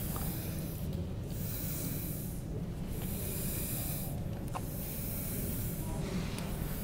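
Repeated hissing, each spell about a second long and coming about every two seconds, over a steady low rumble.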